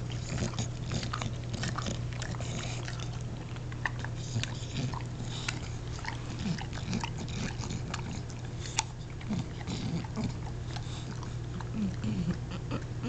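English bulldog chewing and licking: many small wet clicks, with short low grunts now and then. A steady low hum runs underneath.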